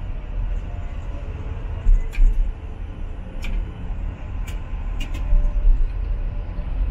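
Ganz KCSV articulated tram running along street track, heard from the driver's cab: a steady low rumble from the running gear, with a handful of short sharp clicks.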